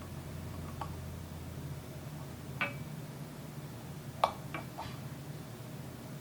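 Light metallic clicks and clinks as a brake caliper piston and caliper body are handled during reassembly: a few separate taps, one sharper clink a little after the middle with two small ones just after it, over a steady low hum.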